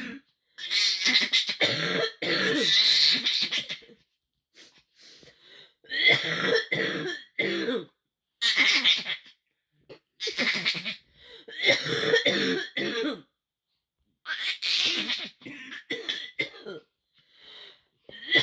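A person coughing in about six separate fits of hacking coughs and throat clearing, with short pauses between them.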